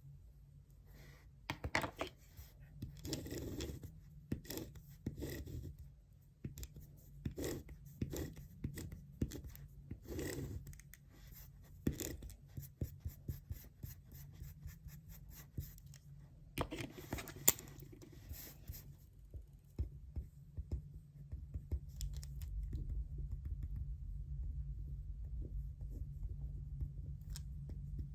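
Pen writing on paper and paper handling at a desk: a run of short scratchy strokes and rustles that stops about two-thirds of the way through. A steady low room hum continues underneath.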